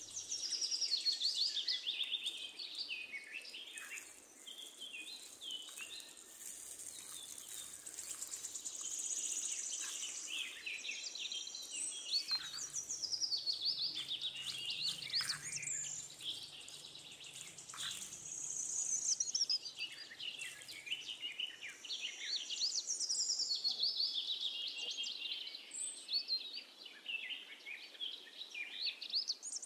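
Birds chirping and singing continuously, many quick high chirps and trills overlapping, with a few faint clicks.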